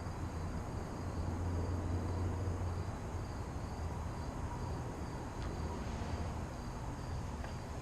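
Crickets chirping steadily in a fast pulsing rhythm, with a low rumble underneath that fades out about three seconds in.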